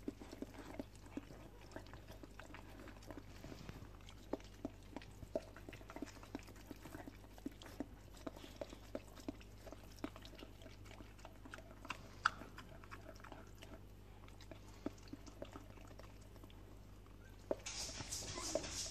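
English Springer Spaniel mother licking and nuzzling a newborn puppy: faint, irregular wet licking clicks and smacks, the dam cleaning the pup after birth. Near the end, a louder burst of rustling.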